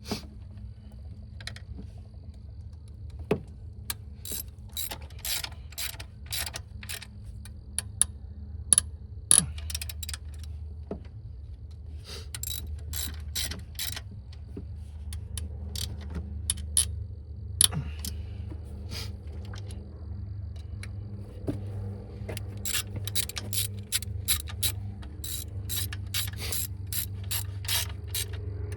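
Hand socket ratchet clicking in several runs of quick strokes, a couple of clicks a second, as bolts are run down during reassembly of the engine bay.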